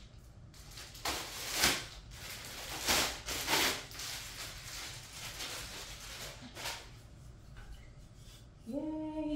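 Plastic packaging rustling and crinkling in short bursts while a folding metal Christmas tree stand is unwrapped and handled.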